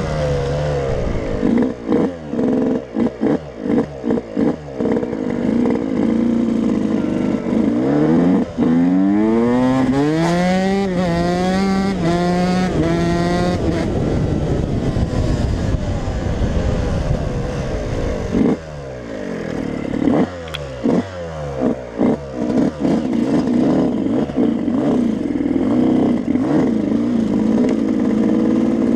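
Yamaha YZ125 two-stroke single-cylinder motocross engine heard on board while riding. The throttle is blipped and chopped in quick bursts early on and again around twenty seconds in. About ten to thirteen seconds in the pitch climbs in repeated rising sweeps through the gears, and long stretches are held at high revs.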